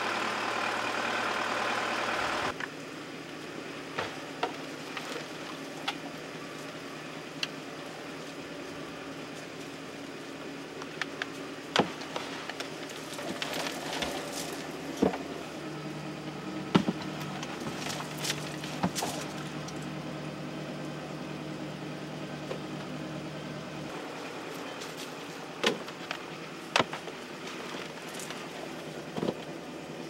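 Tractor engine running steadily, louder for the first two or three seconds and then quieter, with scattered sharp knocks and clicks.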